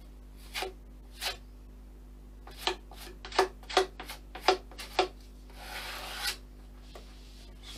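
A hand-held plastic filler spreader scraping filler onto the model's fuselage in a series of short strokes, with a longer rub about six seconds in.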